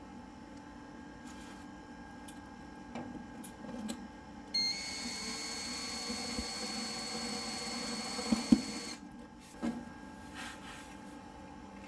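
Power drill/driver running steadily for about four seconds, driving a washer-fitted screw into a foam panel under a table saw, with a sharp knock just before it stops. Light handling clicks and knocks come before and after.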